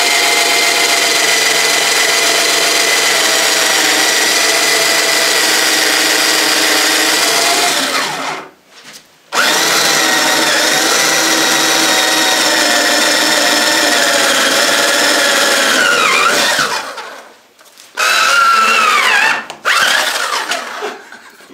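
Cordless drill running steadily as its bit bores through a cardboard tube. It stops about eight seconds in, starts again for a second run of about seven seconds that winds down, and then gives a few short revs rising and falling in pitch near the end.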